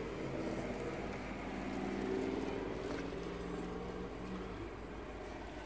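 Low steady hum of an idling car engine, heard inside the car's cabin.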